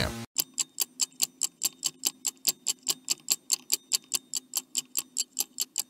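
Clock ticking, an edited-in sound effect: rapid, even ticks at about five a second over a faint steady hum.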